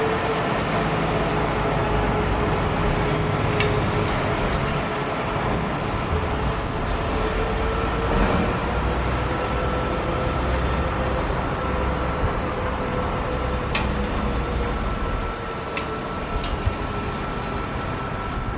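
Boeing 777-300 jet engines at takeoff power, heard from far off: a steady roar with a faint whine that slowly wavers in pitch, and a few light clicks.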